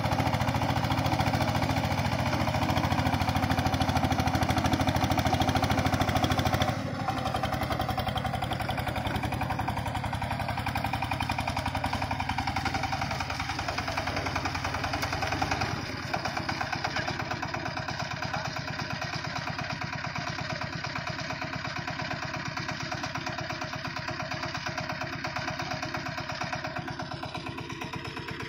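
Kirloskar power tiller's single-cylinder diesel engine running steadily under load while its cage wheels churn through deep paddy mud. The engine sound drops in level about seven seconds in and again about sixteen seconds in.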